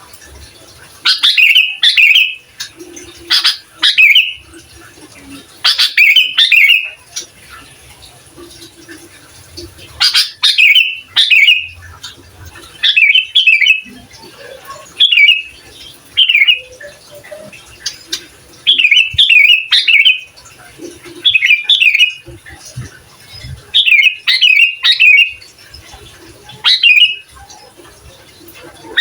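Sooty-headed bulbul (kutilang) singing: short, bubbly whistled phrases repeated every second or two, with pauses between them.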